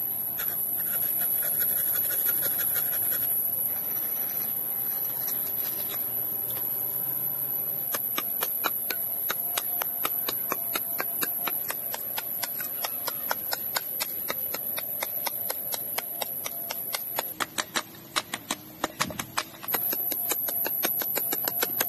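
A steel hand tool striking and cutting into a block of wood being carved into a rifle stock. After quieter rubbing and scraping, a quick, even run of sharp taps starts about eight seconds in, several a second.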